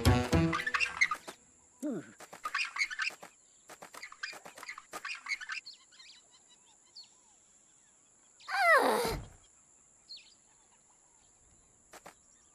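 Cartoon soundtrack: music ends about a second in, then scattered short bird-like chirps and clicks. About eight and a half seconds in comes a single loud swoop that falls steeply from high to very low pitch.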